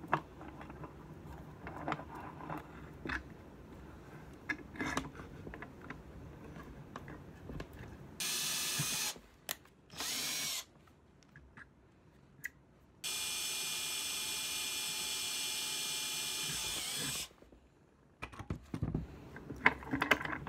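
Cordless drill with a 1/8-inch bit boring into a wooden broomstick: two short bursts about eight and ten seconds in, then a steady run of about four seconds that winds down as it stops. Scattered clicks and knocks of handling come before and after.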